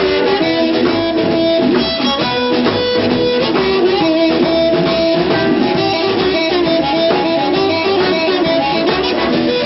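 Live blues band playing: blues harmonica blowing long held and bent notes over electric guitar and a drum kit.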